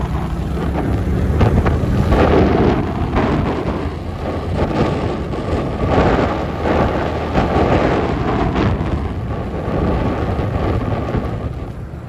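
Wind buffeting the microphone of a camera riding on a moving motorbike: a loud, gusty rumble that swells and eases, with a faint steady whine through the middle.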